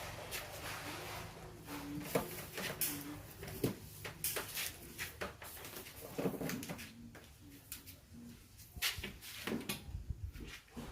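Irregular clicks and knocks of hard plastic parts being handled and set down, as when a cordless drill's battery and charger are taken out for charging. Faint wavering tones come through twice in between.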